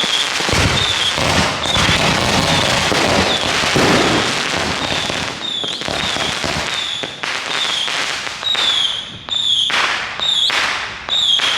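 A barrage of backyard consumer fireworks going off. It starts as a dense stretch of crackling and bangs, then becomes a quick series of separate shots about half a second to a second apart, each followed by a short high whistle.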